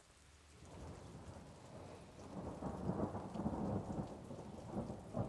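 Thunder rolling over steady rain: a low, crackling rumble builds about a second in, swells twice and starts to fade near the end.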